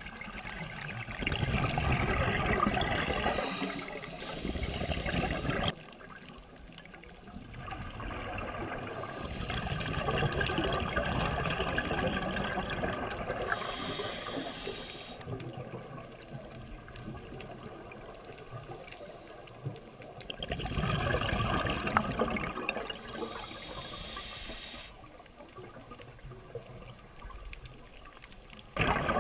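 Scuba breathing through a demand regulator, heard underwater: long bursts of exhaled bubbles rushing and gurgling out about three times, each with a brief hiss, separated by quieter pauses.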